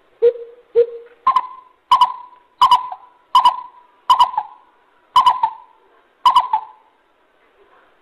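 Greater coucal calling: two low hoots, then a run of about seven louder, higher-pitched hoots, stopping shortly before the end.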